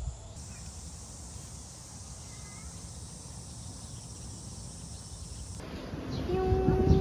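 Outdoor ambience with a steady, high-pitched insect drone and a few faint chirps. About five and a half seconds in, it gives way to background music with guitar.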